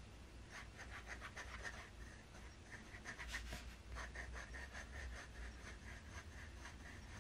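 Pilot Custom Heritage 912 fountain pen's FA (Falcon) nib scratching faintly across notebook paper in quick, repeated writing strokes.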